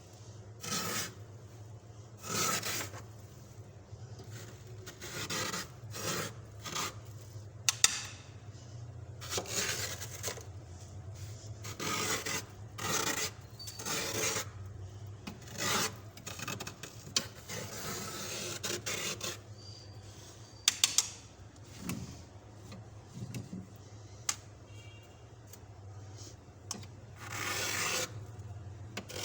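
Soft built-up frost being scraped off the inside of an empty fridge or freezer compartment, in repeated rasping strokes about once a second. A few sharp clicks fall among the strokes.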